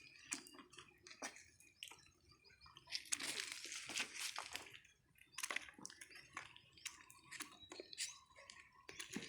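Scattered wet clicks, crackles and squishes, with a denser rustling stretch about three seconds in, from a fresh catch of live shrimp being handled.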